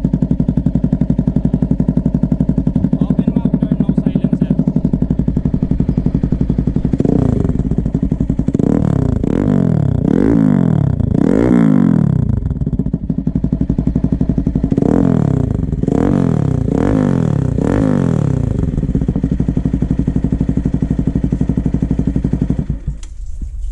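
Bajaj Pulsar NS200 single-cylinder engine breathing through an Akrapovic full-carbon muffler with no silencer insert. It idles steadily, is blipped in two runs of about four quick revs, settles back to idle, and stops just before the end.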